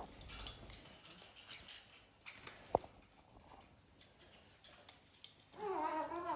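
Faint rustling and light ticks as a kitten and a fennec fox shift and paw on a fleece blanket, with one sharper click partway through. A short wavering voice sounds near the end.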